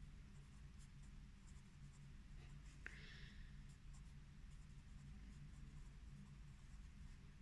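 Faint scratching of a pencil writing on notebook paper in short strokes, with one light tick about three seconds in.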